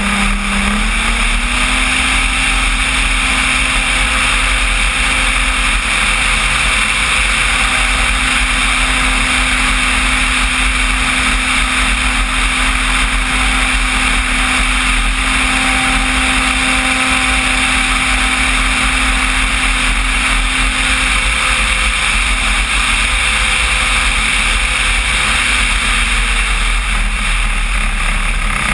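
Electric motor and propeller of a radio-controlled Cessna 185 floatplane in flight, heard from an onboard camera with wind rushing past. The propeller drone rises in pitch just after the start as the throttle opens, holds steady, and falls off gradually near the end.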